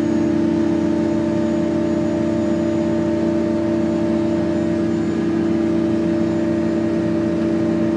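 Crane engine running steadily inside the operator's cab, a constant drone with an even hum while the crane carries a heavy suspended load.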